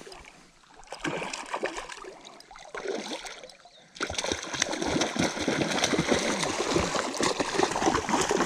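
A hooked trout, about three pounds, thrashing and splashing at the water's surface close to the bank while being played toward the net. The splashing grows louder and more continuous from about four seconds in.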